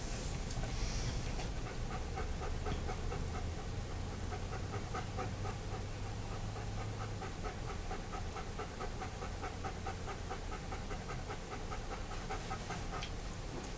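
A dog panting steadily in a quick, even rhythm.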